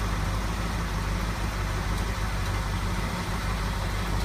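Chevrolet square-body dually pickup's engine idling steadily.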